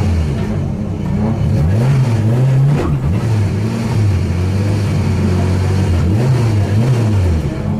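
Fiat Uno Turbo's turbocharged four-cylinder engine revving, its pitch rising and falling several times between steadier stretches.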